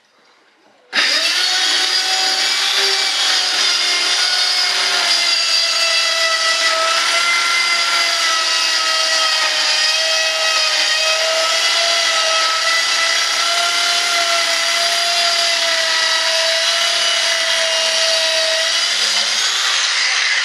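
Handheld power tool running steadily under load as it cuts through the cured fibreglass-and-resin edge of a mold layup, a constant motor whine with a cutting rasp. It starts about a second in and stops right at the end.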